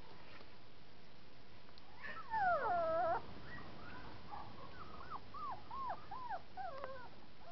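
Young puppy howling: one long cry about two seconds in, dropping and then held, followed by a run of short, high, rising-and-falling whines and yips, two or three a second.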